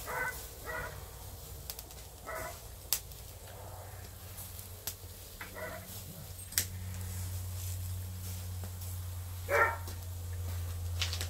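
Short animal calls, about five in all, each well apart from the next, with a few sharp clicks between them. A steady low hum sets in about six and a half seconds in.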